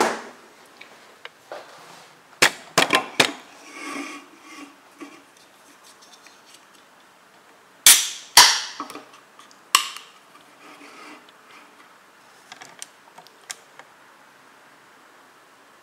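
Aluminium drink can cracked open by its pull tab: two sharp cracks about half a second apart with a short hiss of escaping gas between them, the loudest sound here. A few sharp knocks and clicks come earlier as the can is handled.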